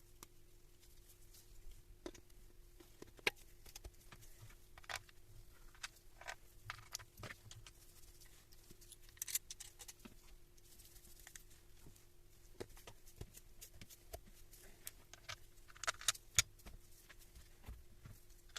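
Faint, scattered clicks and light taps at irregular intervals, a few sharper ones standing out, over a steady low hum.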